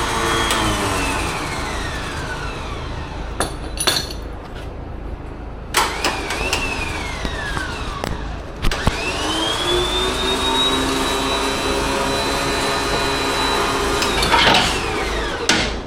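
Badlands electric winch motor being test-run in bursts: a high whine that spins up and winds down three times, the last run the longest at about six seconds, with sharp clicks between the runs.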